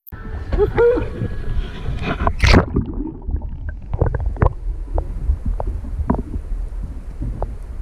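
Muffled low rumbling and sloshing of water around a submerged action camera, with scattered knocks and bumps against its housing.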